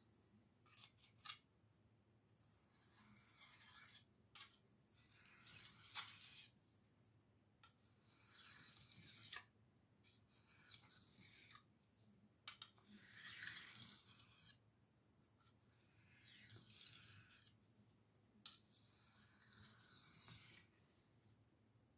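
Steel butcher-knife blade drawn slowly back and forth across a sharpening stone, making about seven faint scraping strokes of a second or two each, with a few light clicks in between, as the edge is honed back on.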